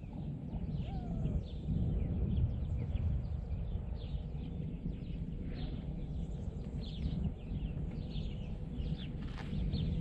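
Wind buffeting the microphone as a steady low rumble, with birds chirping repeatedly over it in short, high calls.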